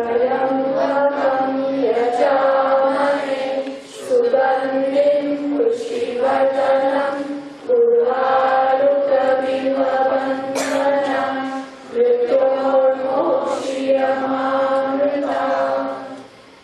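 Group of voices chanting a Hindu mantra in unison over a steady lower drone, in four long phrases of about four seconds each; the chant stops near the end.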